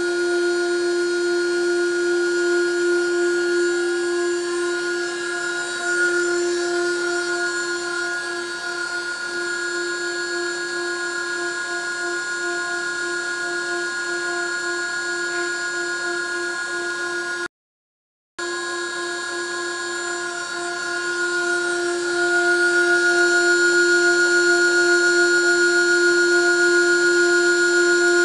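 High-speed milling spindle of a CNC-converted benchtop lathe running with a steady, high-pitched whine while it cuts a turning wooden blank. The sound cuts out for about a second past the middle, and it grows louder over the last few seconds.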